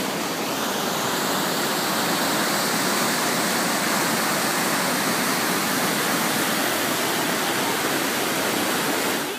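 Fast mountain river tumbling over rocks: a steady rush of white water that stops abruptly at the very end.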